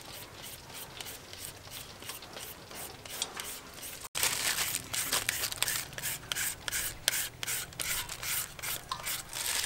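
Green papaya being shredded with a serrated julienne peeler: quick repeated scraping strokes as the blade rasps thin strips off the firm fruit. The strokes pause briefly about four seconds in, then come back louder and faster.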